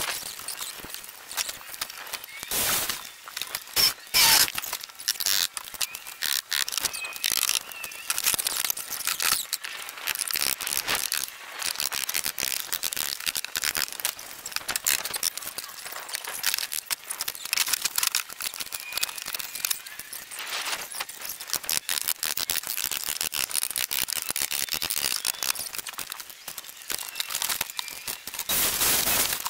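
Sped-up sound of wood-framing work: a dense, rapid clatter of knocks and clicks from tools and lumber, with high squeaks running through it.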